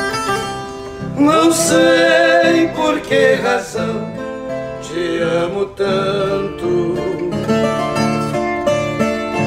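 Acoustic sertanejo music: a ten-string viola caipira and a nylon-string classical guitar playing an instrumental passage before the vocal enters.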